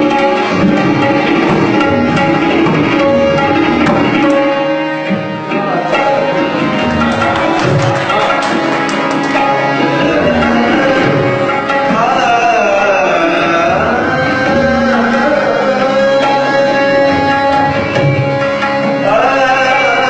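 Tabla being played in a Hindustani-style music performance, over held melodic notes, with a melody line sliding in pitch about twelve seconds in and again near the end.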